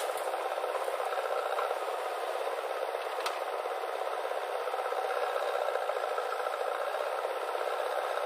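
JCB 3DX backhoe loader working as it loads soil into a tractor trolley: a steady rattling mechanical noise, thin with the low rumble missing, with a sharp knock at the start and another about three seconds in.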